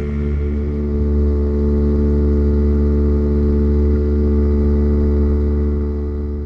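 Boat's outboard motor running at a steady high speed, its drone level and unchanging, with a hiss of water spray along the hull; it fades out near the end.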